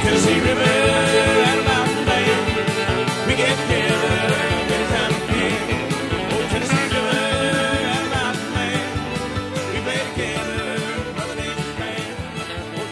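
Country music with guitar, gradually getting quieter.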